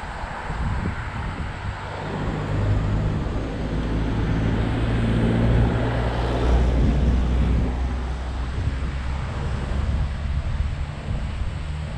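Wind rumbling on the camera microphone while cycling, with road and tyre noise under it; it swells in the middle and eases off again.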